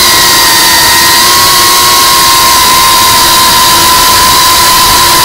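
FPV drone's motors and propellers whining at a steady pitch over rushing air noise, picked up by the drone's own onboard camera.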